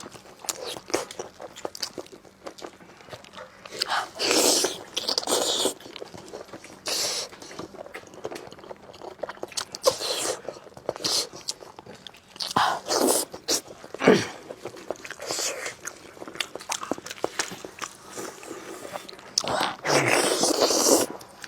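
Close-up eating of braised spicy lamb chops: biting and chewing meat off the bone, with wet mouth sounds and many small clicks. Several louder noisy bursts come about 4, 10, 13 and 20 seconds in.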